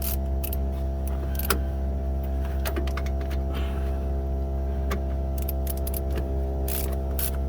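Scattered sharp metallic clicks and clinks of a socket wrench and tools working the wheel hub bolts, coming singly and in short clusters, over a steady low hum.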